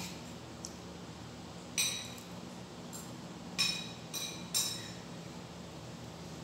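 A metal spoon clinking against a ceramic plate: four short ringing clinks, one about two seconds in and three close together around four seconds. A faint low steady hum runs underneath.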